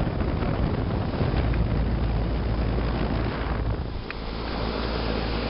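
Carrier central air conditioner's outdoor unit running up close: the condenser fan's steady rushing with the low hum of its compressor, which the owner thinks could be a reciprocating type. Wind buffets the microphone.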